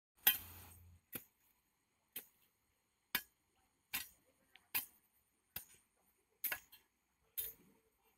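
Short-handled hoe chopping into grassy soil, nine sharp strikes at a steady pace of about one a second, the first the loudest.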